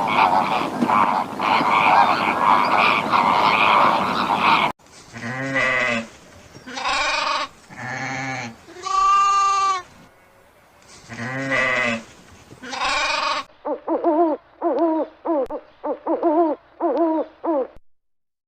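A series of animal calls from cut-together recordings. First a dense mix of many animals calling at once, then several drawn-out pitched calls one after another, then a quick run of about a dozen short, higher calls that stops near the end.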